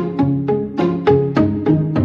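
Background music: a quick run of short notes with sharp starts that fade fast, about four or five a second.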